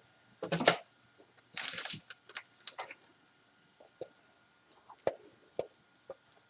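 Kitchen handling sounds while more cheese is added to a bowl of enchilada filling: two short rustling bursts in the first two seconds, then scattered light taps and clicks.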